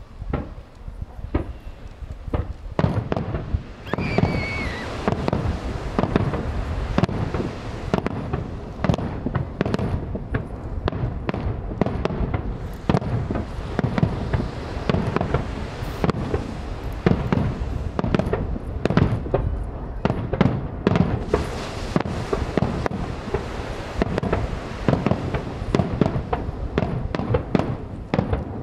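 Fireworks display: aerial shells bursting one after another in a rapid, unbroken barrage of booms and bangs, with a brief warbling whistle about four seconds in.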